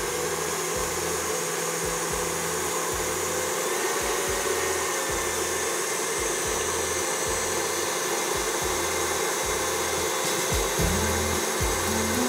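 KitchenAid Artisan stand mixer running steadily, its beater whipping a mixture in a stainless steel bowl: an even motor whir.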